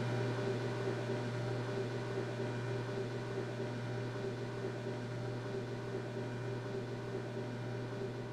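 Steady mechanical hum: a strong low drone with several fainter steady higher tones over a light hiss, unchanging throughout.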